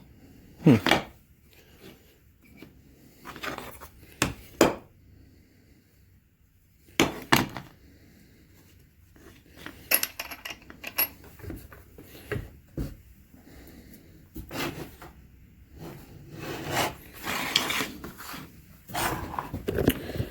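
Handling sounds from unboxing a chainsaw: scattered knocks and clunks of the saw and its parts being picked up and set down, with rubbing and scraping of packaging that grows busier toward the end.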